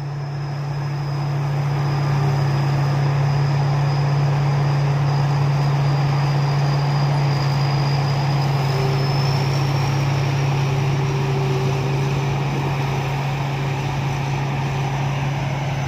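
Rice combine harvester's diesel engine running steadily under a thin, high whine that rises slightly about halfway through. The sound grows louder over the first couple of seconds, then holds.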